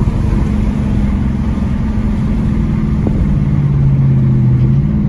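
2020 Dodge Challenger R/T's 5.7-litre HEMI V8 with its mid mufflers deleted, heard from inside the car while driving: the exhaust runs steadily with a low drone, which grows stronger about three seconds in.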